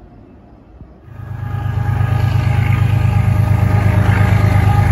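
Diesel locomotive approaching and passing close below: its engine sound swells up loudly about a second in, then holds as a loud, steady, low throbbing.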